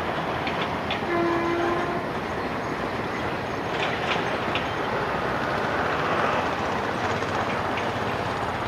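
Passenger express rolling away along the track: a steady rumble of coach wheels with scattered clicks over the rail joints. A short, steady locomotive horn note sounds about a second in.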